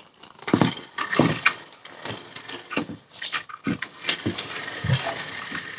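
A toy RC monster truck driving around: irregular plastic knocks and clatter mixed with uneven rushes of hiss, with no steady motor tone.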